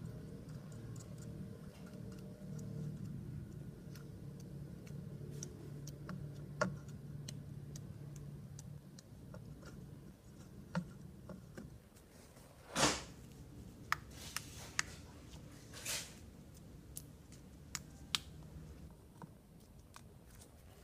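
Slime being handled, making scattered small clicks and pops, with two louder soft squishes about thirteen and sixteen seconds in. A low steady hum runs under the first half.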